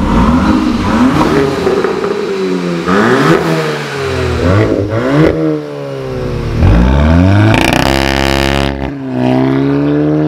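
Volkswagen Mk8 GTI's turbocharged 2.0-litre four-cylinder running through an APR stainless-steel catback exhaust with straight-through mufflers. It is revved up and down several times, then pulls away with a steady rise in pitch near the end.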